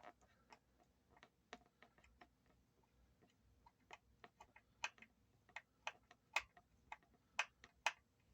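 Faint clicks of a screwdriver working the small black screws out of a Jackson JS22 electric guitar's electronics cover. The clicks are scattered at first and become sharper and steadier, about two a second, over the second half.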